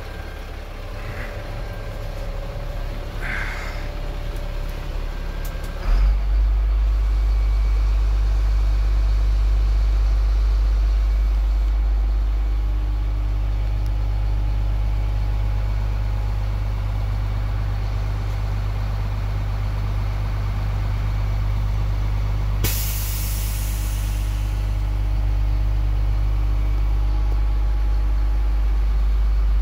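GMC T7500 truck engine running steadily at standstill, heard from inside the cab. About six seconds in it becomes louder and deeper. Near the two-thirds mark there is a single short hiss of released air, about a second long.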